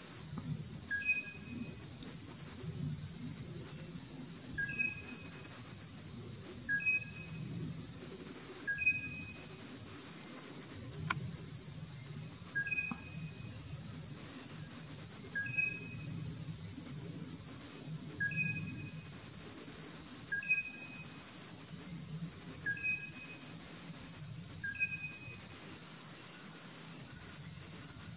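Steady, high-pitched insect drone, like a chorus of crickets. Over it a short, clear two-note call repeats about every two seconds from an unseen animal.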